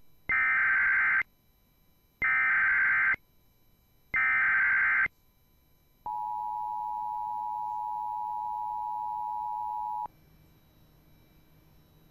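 Emergency Alert System SAME header: three identical bursts of warbling data tones, each about a second long with a second's gap between, followed by the two-tone EAS attention signal held steady for about four seconds and cutting off abruptly. It is the standard digital preamble that opens an emergency alert broadcast, here before a siren-test message.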